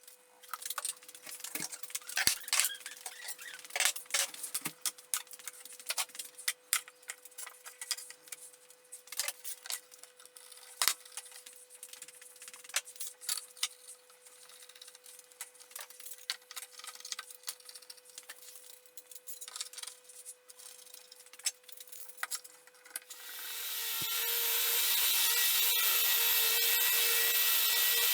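Woodworking handling sounds: scattered clicks, knocks and rubbing of wood and tools. Near the end a power tool starts up and runs steadily.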